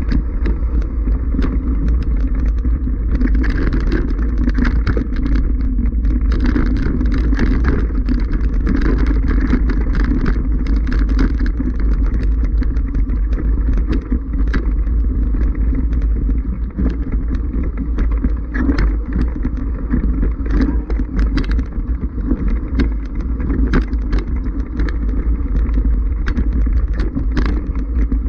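Mountain bike rolling over loose rocky scree, its chain and frame rattling with many quick clicks, under a heavy low rumble of wind and vibration on the camera's microphone.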